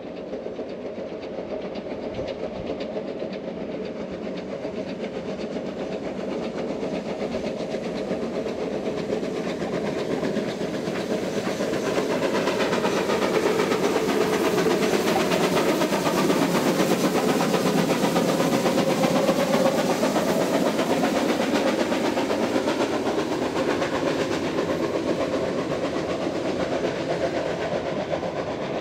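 South African Railways Class GMAM Garratt articulated steam locomotive running past under steam. It grows steadily louder as it approaches and is loudest around the middle as it goes by. Its train of tank wagons and coaches then rolls past on the rails.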